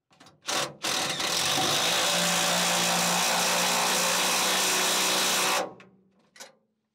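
Cordless driver running a nylon lock nut down a toolbox mounting bolt onto a heavy flat washer: a short burst about half a second in, then steady running for about four and a half seconds before it stops, tightening until the washer is pulled down into the wooden bed.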